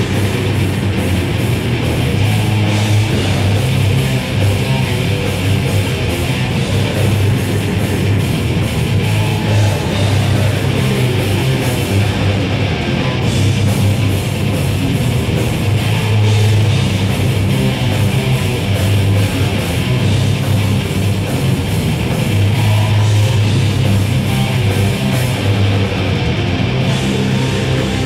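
A live heavy metal band playing loudly and without a break: distorted electric guitar through a stack amp over a Yamaha drum kit.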